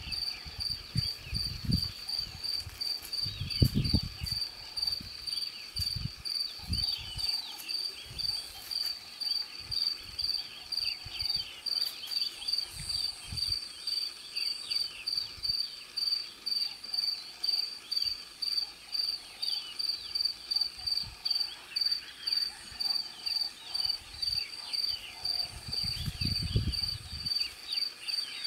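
A cricket chirping steadily, a high pulsed note repeating about twice a second. Low rumbles come through in the first few seconds and again near the end.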